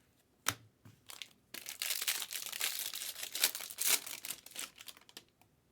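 Foil wrapper of a trading-card pack crinkling and tearing as it is opened, with a sharp click about half a second in and then a dense run of crackling lasting about three and a half seconds.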